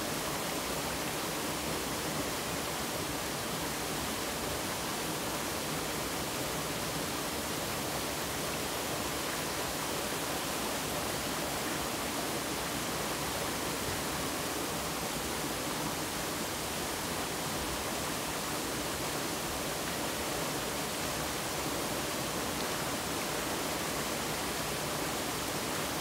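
Water of a mountain valley stream flowing in a steady, unbroken rush.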